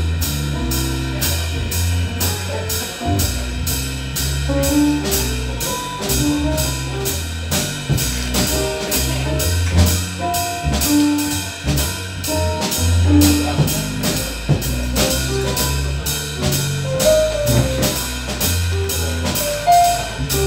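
Live big-band jazz: a drum kit keeps a steady beat under a moving bass line, with a saxophone playing the melody in front of the band.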